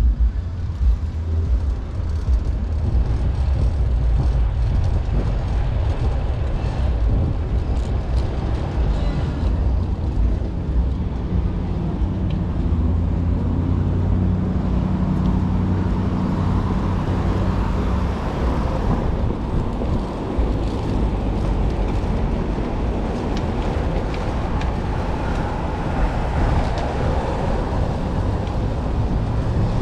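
Steady city street traffic noise with a continuous low rumble.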